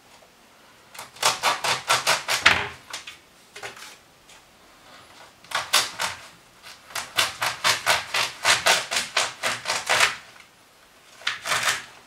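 Small kitchen knife sawing back and forth through a cooked ear of corn in its husk on a plastic cutting board, about five quick strokes a second, in three bouts with short pauses between.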